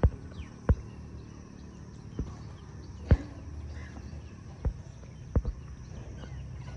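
About seven short, sharp knocks at uneven intervals over a steady low rumble; the loudest come right at the start and about three seconds in.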